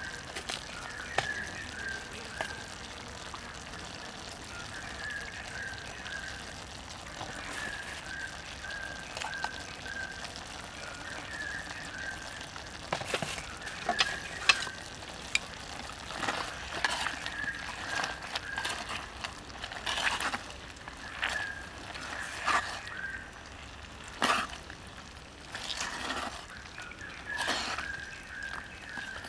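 Pork intestine stew simmering in a clay pot over a wood fire, with scattered sharp ticks and crackles that grow denser in the second half, and wooden chopsticks stirring it near the end. A faint high chirp repeats over and over in the background.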